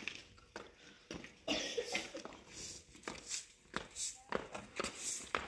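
Striped woven rug rustling and flapping as it is handled, shaken out and folded: a string of short, irregular swishes.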